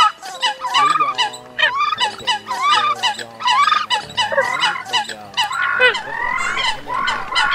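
Eurasian coots calling: a rapid, dense series of short, sharp honking calls from several birds overlapping, a few per second. Held low music notes are mixed in underneath.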